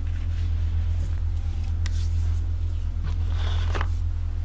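A steady low rumble runs throughout, with a few faint rustles and light taps about two seconds in and near the end.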